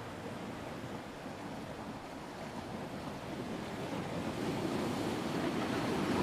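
Ocean surf: a steady rushing of waves that swells louder toward the end.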